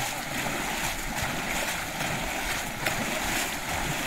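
Continuous splashing and sloshing of shallow flood water as several people wade through it, sweeping their arms through the water.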